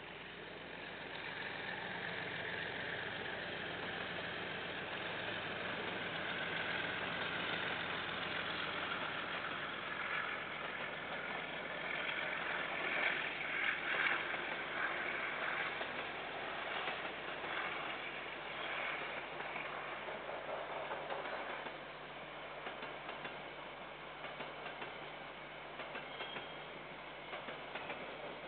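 A KiwiRail train passing. The rumble and engine noise build up, are loudest about halfway through with a quick run of wheel clicks over the rails, then fade away.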